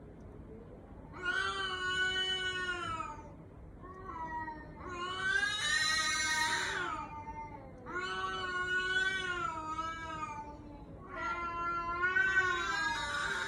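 Domestic cat meowing four times in long, drawn-out calls of about two seconds each, with short pauses between them. The cries sound like a human baby's.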